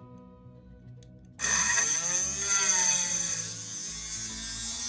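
Handheld rotary tool starting up about a second and a half in, its diamond tube bit grinding into glass: a loud hissing grind over a motor whine whose pitch rises and falls.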